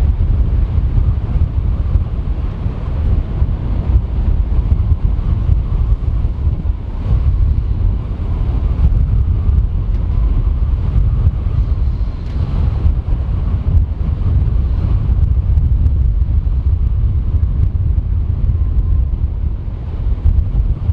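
Heavy wind buffeting the microphone over the low rumble of a Boeing E-4B's four General Electric CF6-50E2 turbofans, with a faint wavering engine whine partway through.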